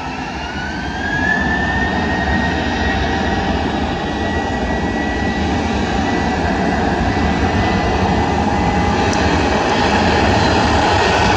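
Airbus A321's twin jet engines spooling up to takeoff thrust. A rising whine levels off about two seconds in, then the engines run steadily and loudly, growing a little louder as the airliner starts its takeoff roll.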